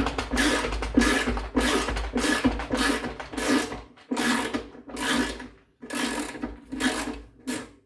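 A hand tool worked in repeated rasping strokes, about one or two a second, as a drum-shaft bolt on a Samsung WD106 washer-dryer is driven back in after threadlocker has been applied to it. The strokes grow shorter and more spaced toward the end.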